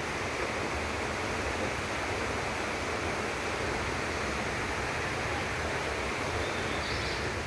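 Steady rush of falling water from the nearby waterfalls: an even hiss with a low, uneven rumble underneath.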